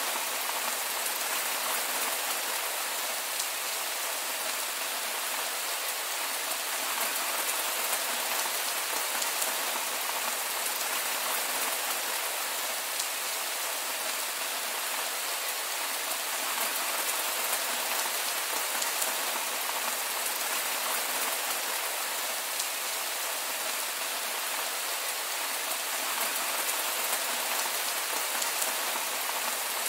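Heavy rain falling steadily, an even hiss of countless drops with no thunder.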